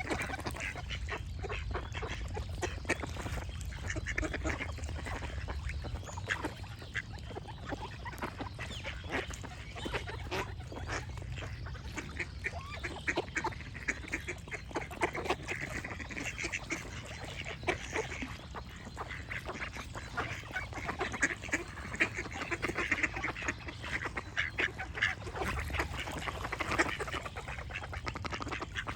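Ducks quacking over and over in short calls, with other birds chirping.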